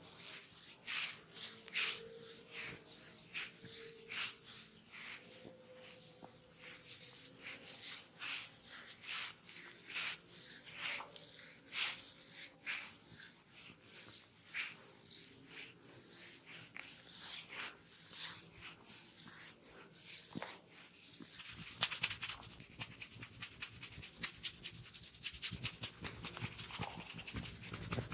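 Hair and scalp being scratched close to the microphone: separate strokes about once a second, turning to quicker, denser scratching after about twenty seconds.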